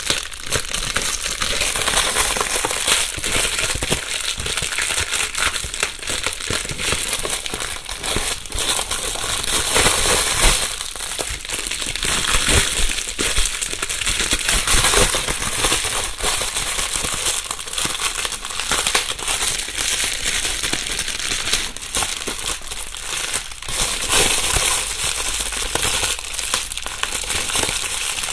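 Plastic bubble wrap being crumpled and rustled by hand, a dense, continuous crinkling with many small crackles and pops of bubbles.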